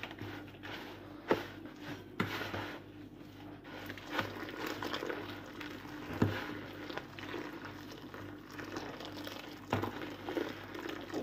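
Wooden spoon stirring a grainy mix of bulgur, semolina and flour in a plastic bowl as hot water is poured in: scraping, wet squishing, and a few sharp knocks of the spoon against the bowl.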